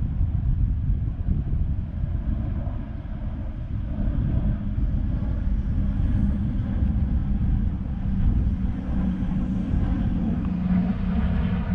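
Wind buffeting the microphone as a loud, uneven low rumble, with a distant engine drone that grows louder over the last few seconds.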